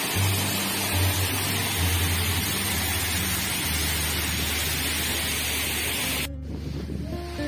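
Waterfall: a steady rush of falling water that cuts off suddenly about six seconds in.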